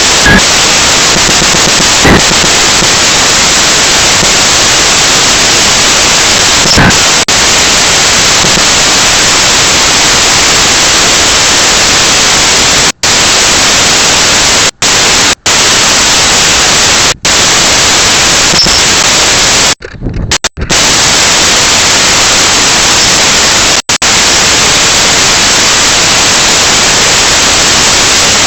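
Loud, steady static-like hiss with no pitch or rhythm, cutting out suddenly for a moment several times.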